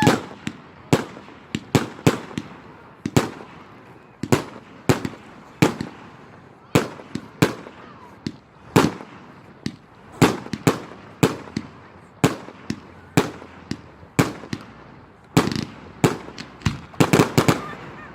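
Fireworks going off: a string of sharp bangs at uneven spacing, about one to two a second, with a quick rattle of several bangs near the end.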